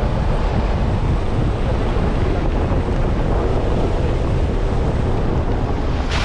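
Steady low rumble of a Suzuki Grand Vitara on the move off-road, engine and rough-ground noise blended with wind, with no distinct events.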